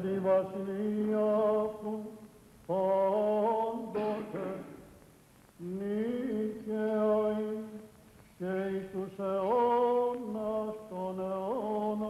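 Greek Orthodox (Byzantine) liturgical chant: male voices chanting in phrases of two to three seconds, each held mostly on one steady note with short rising turns, with brief pauses between phrases.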